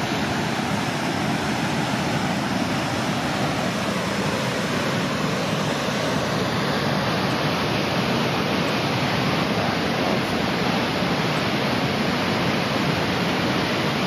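Aubrey Falls, a large waterfall on the Mississagi River, rushing steadily, an even wash of falling water with no breaks.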